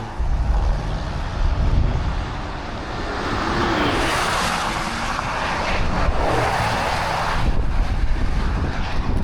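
Car driving off with its windows open: road and engine noise with wind rushing in and buffeting the microphone in gusts.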